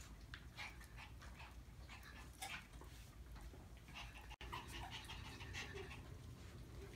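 Faint, scattered little whimpers and squeaks from one-month-old Maltese puppies.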